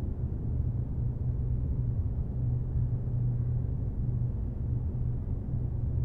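A steady low hum with a faint rumble beneath it, unchanging throughout.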